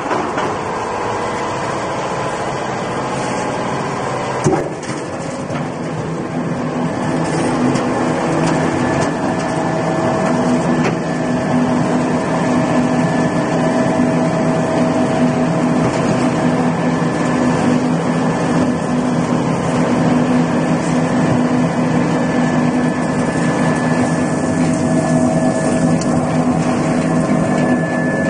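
Screw-type peanut oil expellers running: a steady mechanical hum with a few held tones, and a single sharp knock about four and a half seconds in.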